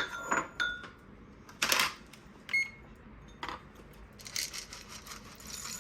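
Dry dog kibble being portioned into food bowls: ringing clinks of bowls and pieces against the dishes, rattling bursts of kibble, and a short beep about two and a half seconds in.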